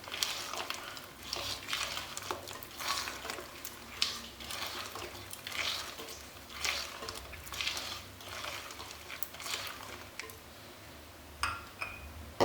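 Creamed butter, icing sugar, lemon zest and mint flavouring being mixed together in a bowl. A utensil scrapes against the bowl in repeated, irregular strokes.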